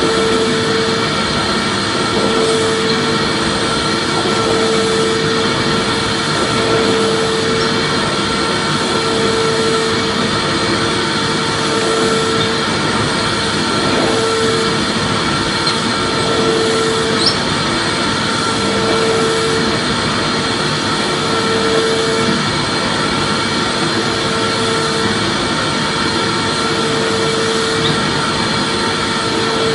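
Vacuum cleaner motor running steadily with a whirring hiss and a constant whine, plus a lower hum that pulses on and off about every two seconds.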